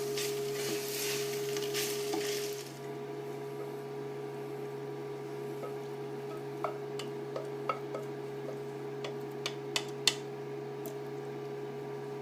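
Pasta sizzling softly in a frying pan, stopping abruptly about two and a half seconds in. A steady hum follows with scattered light clicks and taps of utensils against the pan and dishes.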